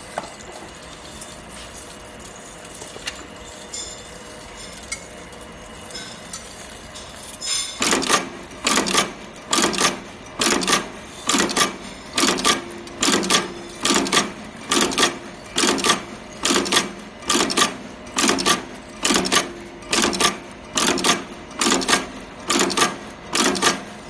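Vertical fully automatic button/stud attaching machine cycling, clacking as it presses studs into denim at an even pace of just over one stroke a second, starting about eight seconds in. Before that there is only a low steady hum with a few light clicks.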